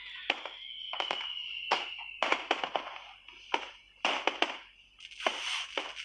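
Fireworks: a rapid, irregular run of sharp bangs and crackles, with a slowly falling whistle through the first two seconds.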